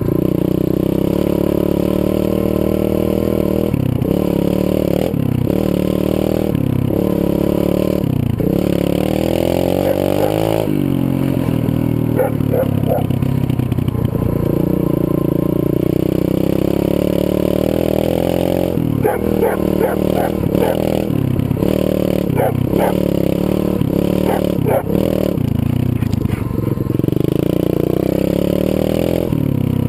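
Zongshen 125cc single-cylinder four-stroke pit bike engine under way, revving up and falling back many times as the rider works the throttle, with a run of short, quick blips in the later part.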